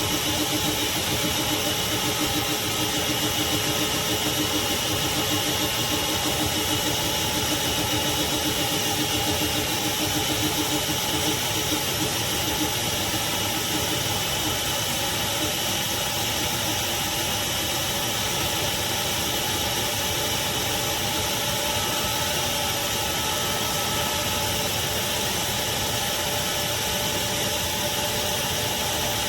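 Craftsman CMXEVBE17595 16-gallon wet/dry shop vacuum running steadily: a constant motor hum with several fixed tones over a rush of air.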